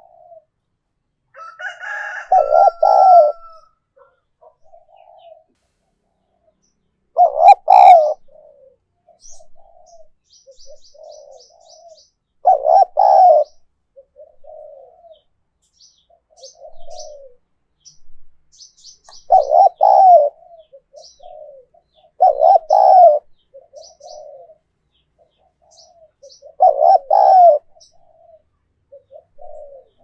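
Spotted dove cooing: six loud phrases a few seconds apart, with softer short coos between them. Faint high chirping of small birds sits behind.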